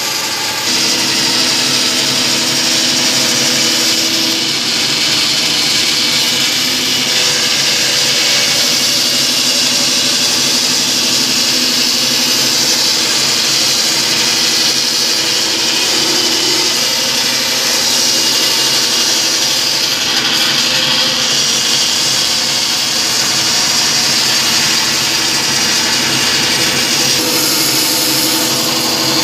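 Band saw running steadily, its blade cutting lengthwise through a yellow cedar plank to rough out canoe paddle blanks.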